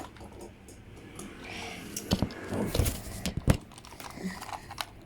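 Plastic LEGO pieces being handled and pressed, with rustling and a few sharp clicks and knocks in the middle.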